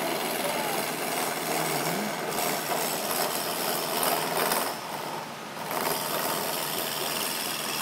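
Benchtop wood lathe running with a hand-held gouge cutting into the spinning wood blank: a steady, rough scraping and rumbling. The cutting noise eases briefly about five seconds in, then picks up again.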